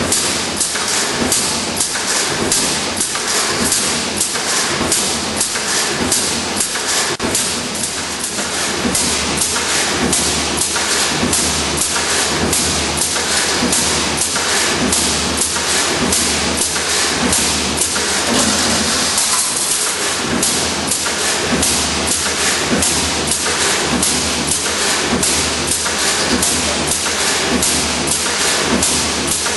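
Dowel basket side frame welding line running, with a quick, even rhythm of mechanical thumps over a constant hiss and low hum.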